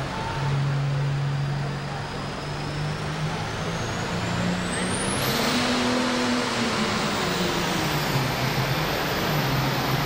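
Turbocharged diesel engine of a John Deere 4955 super farm pulling tractor running at the start line, its note rising and falling a little around the middle. A thin high whine climbs steeply in pitch over the first half and then holds.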